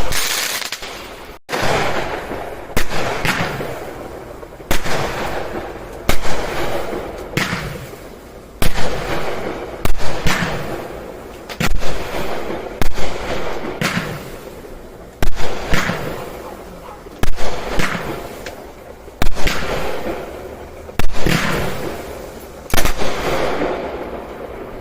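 Consumer fireworks going off in a steady series, a sharp bang about once a second, each trailing off as it fades.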